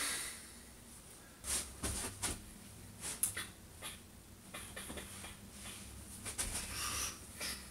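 Irregular rustles and soft knocks of someone moving about and handling clothing, with a few short low thuds.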